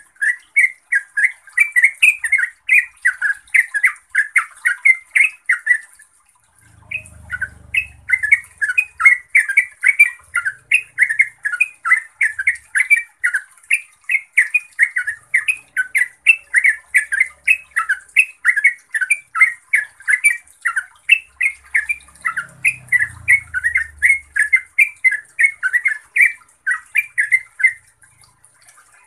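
Yellow-vented bulbul singing a long, fast run of loud, bubbling chattering notes, several a second, with a short break about six seconds in.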